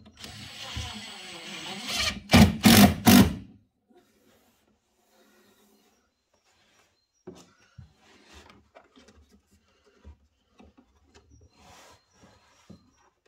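Makita cordless impact driver driving a screw up into a cupboard top: the motor runs for about two seconds, then three short, loud hammering bursts come as the screw seats. Faint rubbing and light taps of hands on the wood follow from about seven seconds in.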